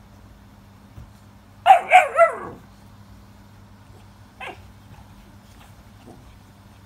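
XL American Bully puppy barking during play-fighting: three quick barks in a row about two seconds in, the last trailing off lower, then a single shorter bark a couple of seconds later.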